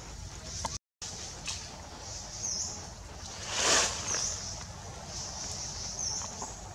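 Outdoor forest ambience: a steady high-pitched hiss that dips about every second and a half, with a short rush of noise a little past the middle. The sound cuts out for a moment about a second in.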